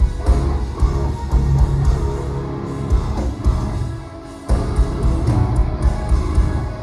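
Progressive metal band playing live: heavy distorted guitars over drums with hard kick-drum hits. The music drops out briefly about four seconds in, then the full band comes back in.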